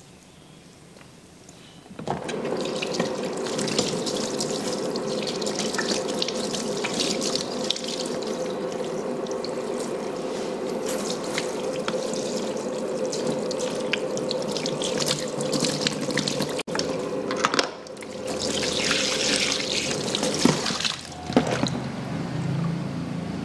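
Water running from a tap into a salon shampoo basin, a steady rush with a hum in it, starting about two seconds in. It stops briefly, runs again for a few seconds and stops near the end.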